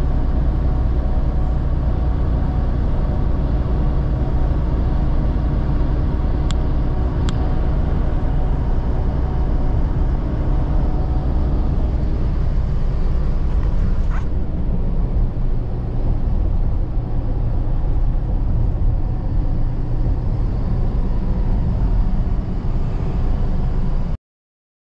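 Cab interior of a semi-truck cruising at highway speed: a steady low rumble of engine and road noise, with a few faint clicks. The sound cuts off abruptly near the end.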